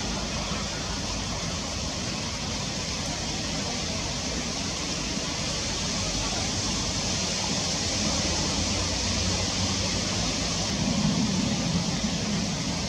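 Steady rain falling, a continuous even hiss, over a low rumble that swells slightly near the end.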